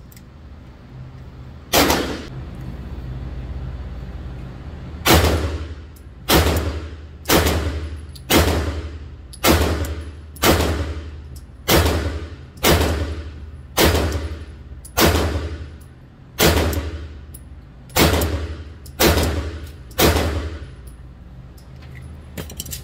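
A pistol firing about fifteen shots, a single shot then a steady string at roughly one a second, each report ringing off in the reverberant booth of an indoor range.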